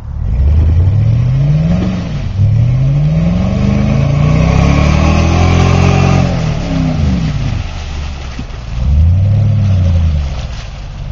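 Chevrolet Avalanche's V8 revved hard again and again while stuck in mud. A first climb is followed by a longer rev held high for a few seconds that then falls away, and a short blip comes near the end.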